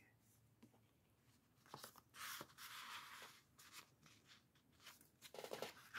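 Soft, faint rustling and sliding of paper as a cardstock journal card and tag are tucked into a paper pocket of a junk journal, starting about two seconds in, with a few small ticks.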